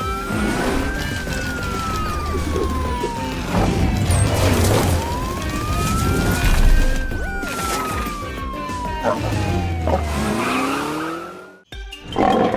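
Cartoon police-car siren wailing over action music in two slow cycles. Each cycle rises quickly, then falls gradually over several seconds. The sound cuts off near the end.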